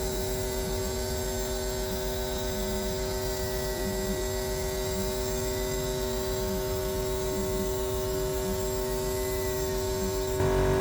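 Laser cutter running while cutting hardboard: a steady machine drone with several fixed tones, getting a little louder just before the end.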